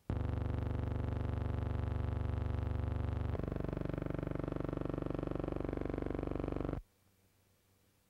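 A loud, steady buzzing drone that starts abruptly, changes tone about halfway through, and cuts off suddenly near the end.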